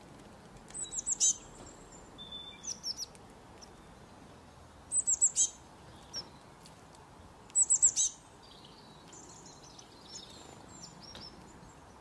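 Small songbird calling: quick groups of about four high, downward-sweeping chirps, three times, with softer scattered calls between them.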